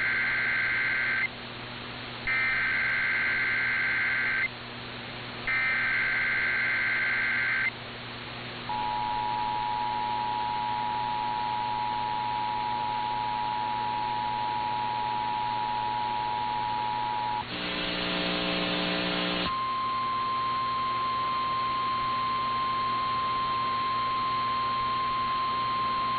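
Emergency Alert System broadcast over AM radio: the end of the first and then two more raspy SAME digital header data bursts, each about two seconds long, then the steady two-tone EAS attention signal for about nine seconds. A brief harsh buzz follows, then a single steady higher tone, all over a low mains-like hum.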